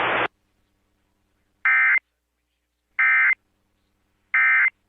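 Three short, identical buzzing bursts of Emergency Alert System SAME digital data, about a second and a half apart: the end-of-message code that closes an alert. A hiss cuts off just at the start.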